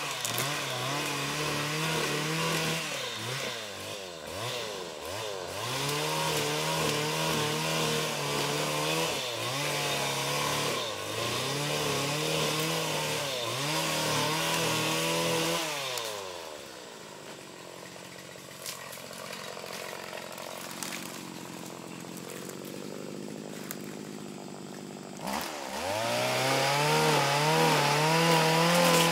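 Small petrol engine of a PC 75 motorized palm cutter revving in repeated bursts while pruning oil palm fronds. About halfway through it drops to a low idle for several seconds, then revs up again near the end.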